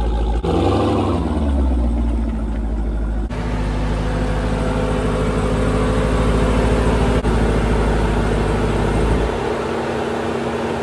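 Supercharged 6.2-litre V8 of a Jeep Grand Cherokee Trackhawk with a Borla ATAK cat-back exhaust, running at low speed as it pulls in. The revs rise briefly about half a second in and fall away, then it settles into a steady burble, and the deep low end drops out near the end.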